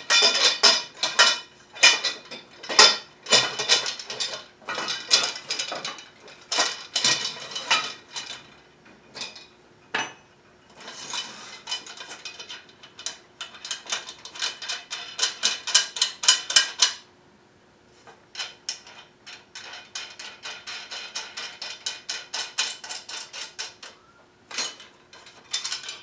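Steel bolts, nuts and washers clinking and rattling against the aluminium rails of a chainsaw mill frame as it is put together by hand. Quick runs of small clicks come in the middle and again near the end.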